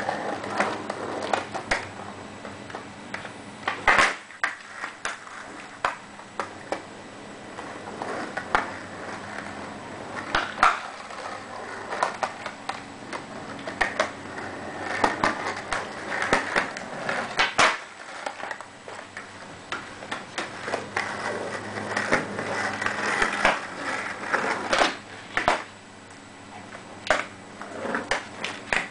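Skateboard wheels rolling on concrete, with many sharp clacks of the boards striking the pavement at irregular intervals.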